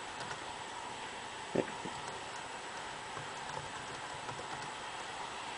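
A few light clicks at a computer keyboard, with one louder click about one and a half seconds in, over a faint steady hiss.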